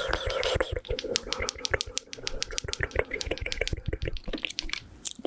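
Close-miked mouth sounds of sucking and working a hard candy lollipop: a rapid run of wet clicks and smacks, with a hiss of breath near the start.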